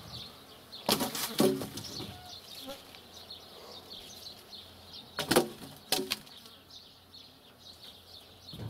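Birch logs thrown down from a truck bed landing on a log pile with wooden knocks: two about a second in, then a louder group around five to six seconds. Small birds chirp faintly in between.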